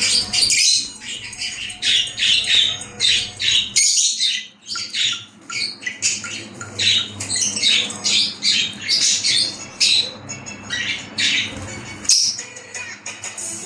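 Several pet parrots squawking and chirping, a dense run of short, shrill calls overlapping one another.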